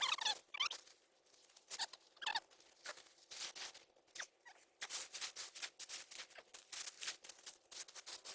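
Rustling and scratching of hands digging through soil to harvest potatoes, in irregular bursts with a few brief squeaky scrapes.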